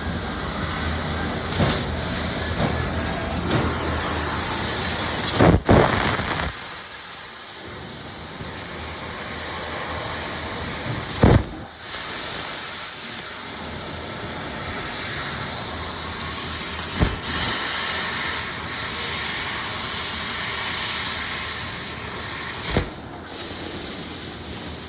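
CNC laser cutting machine running: a steady hiss, strongest in the high register, with a short sharp click about every five to six seconds.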